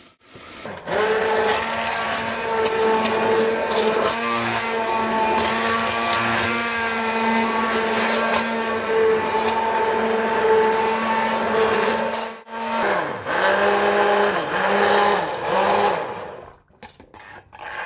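Stainless steel immersion (stick) blender motor running in a pot of cooked vegetable soup, pureeing it. It runs steadily for about eleven seconds, stops briefly, then runs again for a few seconds with its pitch dipping and recovering several times before it cuts off near the end.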